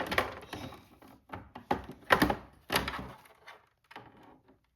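Plastic toy barn parts being handled and fitted together: a series of irregular clacks and knocks, the loudest about two seconds in.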